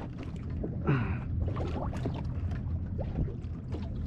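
Low, steady hum of a boat's motor, with light water sounds and scattered small clicks. A short falling murmur, like a brief voiced sound, comes about a second in.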